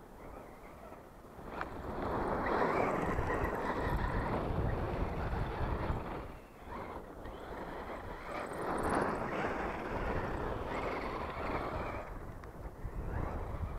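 Radio-controlled Axial Yeti rock racer driving fast over loose gravel: a rushing noise of tyres and flung stones that swells twice as the truck passes. Wind buffets the microphone throughout.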